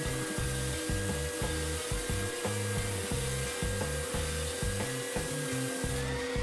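Triton TSPST450 oscillating spindle and belt sander running in belt mode with a steady motor whine while a wooden board is sanded on the belt. The high sanding hiss eases near the end.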